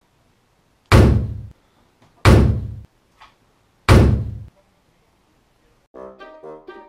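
Three heavy, booming thuds about one and a half seconds apart, each dying away over about half a second. Brass music starts near the end.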